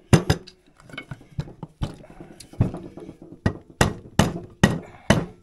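Soft-faced hammer tapping on the crankcase halves of a single-cylinder two-stroke snowmobile engine: about ten sharp taps at uneven spacing. The taps are meant to break the case-sealer bond so the halves separate.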